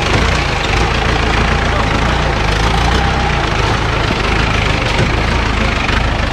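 Off-road jeep's engine running steadily, a deep continuous drone under a dense, even noise.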